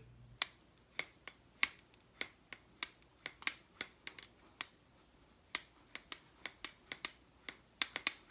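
Civivi Elementum button-lock pocketknife being flicked open and shut over and over, its blade snapping against the stop and the lock engaging with sharp metallic clicks, roughly two to three a second, with a short pause around the middle and a quicker run near the end.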